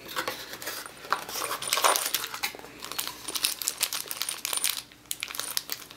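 Small metal hardware, screws and an Allen key, clinking and rattling in its bag, with light packaging rustle, as it is taken out of the box.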